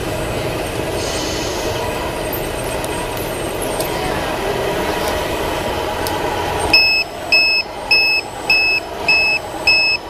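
Steady background noise, then from about seven seconds in a vehicle reversing alarm beeps six times, evenly spaced a little over half a second apart.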